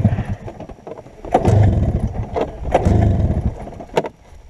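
Arctic Cat Jag 440 snowmobile engine running in surges, swelling and falling back three times, with scattered sharp knocks and a clear knock near the end.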